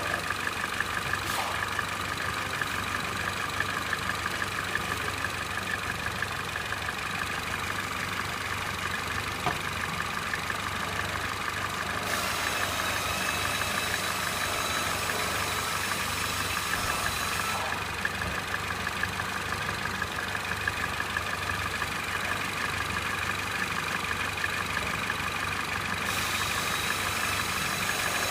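Peugeot EP6CDT 1.6 turbocharged petrol four-cylinder running unevenly at idle, with a fast rhythmic extraneous noise over the engine. It is the sign of a fault the owner has not named.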